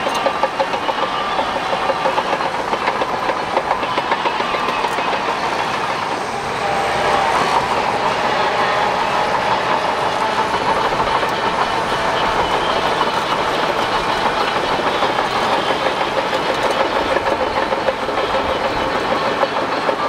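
Bulldozer at work: its diesel engine running under a dense, steady rattle and clank of steel crawler tracks.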